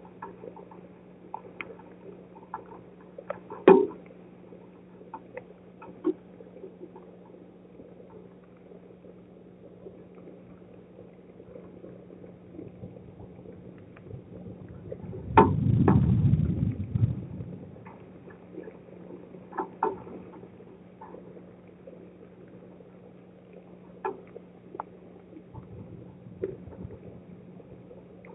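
Rain patter picked up by a driveway security camera during a strong thunderstorm: irregular drops ticking and clicking over a steady low hum. About halfway through, a sharp crack sets off a low rumble of thunder lasting about two seconds, with a fainter rumble near the end.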